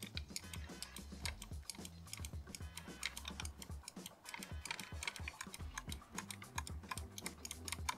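Fingertips and fingernails pressing and rubbing textured grip tape onto the plastic buttons of a Logitech G Pro Wireless gaming mouse, giving many small, irregular clicks and scratchy ticks.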